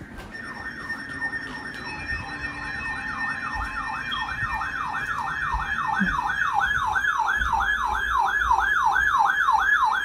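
Weather alert radios sounding their siren-like alarm for a flash flood warning: a tone that falls sharply in pitch, repeating about three times a second and growing louder, with a second, higher warbling alarm joining in a few seconds in.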